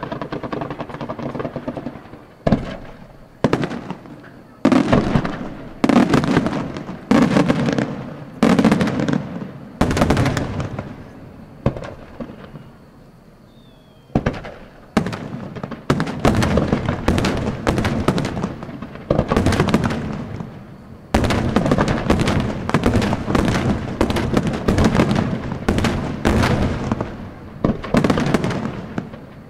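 Aerial firework shells bursting. Separate booms come about a second apart, each trailing off, then a short lull near the middle, then a dense barrage of overlapping bursts.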